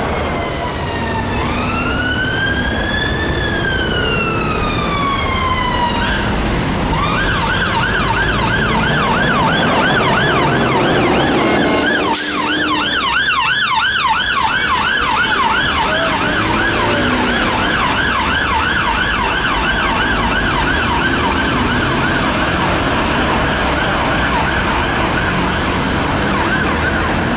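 Electronic ambulance siren over city traffic. It sounds a slow wail rising and falling, then switches about seven seconds in to a rapid yelp that continues to the end.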